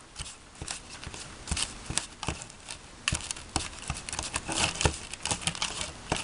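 Small plastic spoon tapping and scraping in the compartment of a plastic candy-kit tray as powdered candy rice mix is stirred with water: a string of irregular light clicks and taps.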